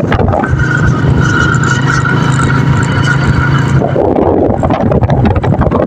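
Motorcycle running at a steady speed, its engine a steady hum through the first few seconds. A little before four seconds in the hum drops under a rough rushing noise of wind and road.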